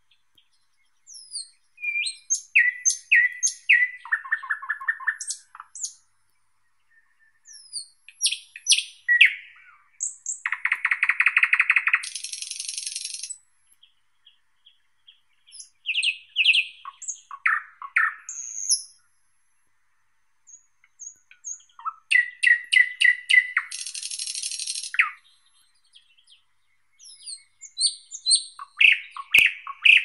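Thrush nightingale singing: about five loud phrases, each a series of rapidly repeated notes, clicks and rattling trills, with short pauses between them.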